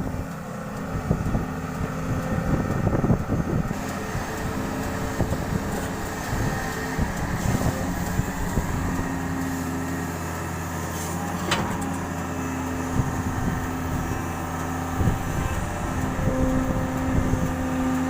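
Doosan 140 excavator's diesel engine running steadily, with a few knocks early on and a sharp click about eleven and a half seconds in.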